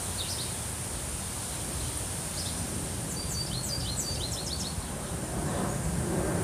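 Small birds chirping: scattered short, falling chirps and a quick run of them about three seconds in, over a steady background hiss. Near the end a low rumble of an approaching airplane begins to rise.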